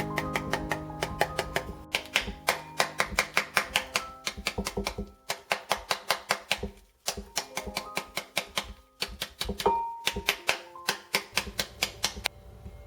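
Background music with runs of rapid, sharp knocks, several a second, coming in bursts with short pauses between them.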